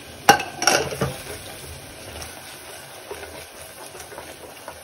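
Spinach paste frying in oil and ghee in a pan, with faint sizzling and scattered spluttering ticks, and a few sharp knocks of a utensil on the pan within the first second.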